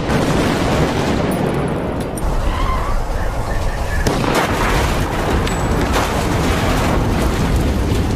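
Loud, dense crackling and rumbling noise that goes on without a break, full of rapid crackles over a heavy low rumble.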